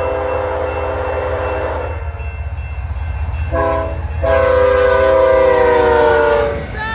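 BNSF GE ES44AC diesel locomotive sounding its horn, a chord of several tones, for a grade crossing: a long blast, a short one about three seconds in, then a louder long blast that drops in pitch as the locomotive passes close by. A low engine and rail rumble runs underneath.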